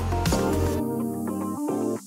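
Background music with a steady beat. About a second in, the bass and beat drop out, leaving only higher held notes.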